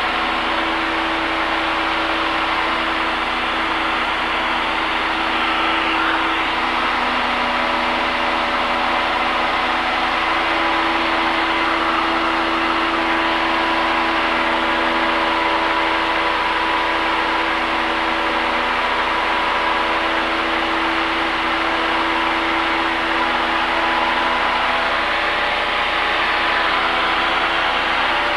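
Cessna 172's piston engine and propeller running steadily at climb power, a constant drone heard inside the cabin.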